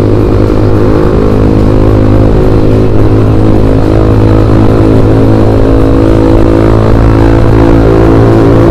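Yamaha Jupiter MX New 135 motorcycle's single-cylinder four-stroke engine running at a steady pitch while cruising.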